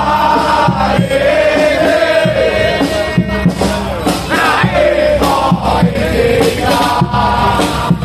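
A crowd of football supporters singing a chant together in unison, with low thumps beating under the singing.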